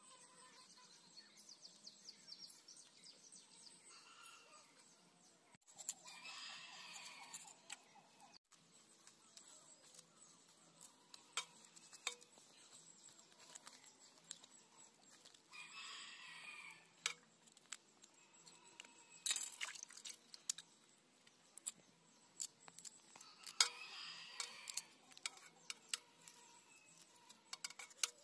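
A knife scraping and cutting small river fish by hand, a scatter of sharp scratchy clicks, the loudest about two-thirds of the way through. A rooster crows three times in the background, roughly every eight to nine seconds.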